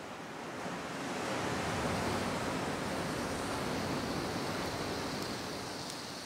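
Ocean surf washing into a narrow rocky sea-cave inlet: a steady rush of waves that swells about a second in and eases off slightly near the end.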